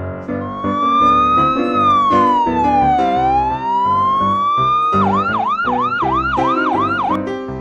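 Emergency-vehicle siren wailing, a slow rise and fall in pitch, then switching about two-thirds in to a quick yelp of about three swoops a second before cutting off near the end, over background music.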